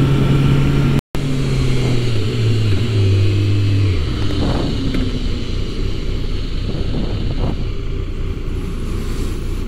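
Motorcycle engine running at a steady speed, its pitch stepping down about two to four seconds in as the bike slows. After that, wind and road noise dominate. The sound cuts out completely for a moment about a second in.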